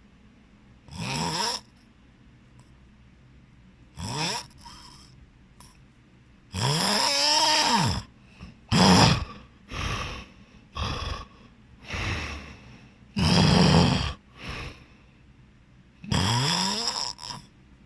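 A person snoring heavily in loud, irregular snores with quiet gaps between them. The snores are some short and some drawn out, the longest lasting over a second near the middle, and several rise in pitch.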